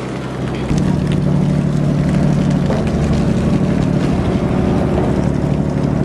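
Engine of a large passenger boat running steadily while under way, a low drone over the rush of water; it gets louder a little under a second in and then holds steady.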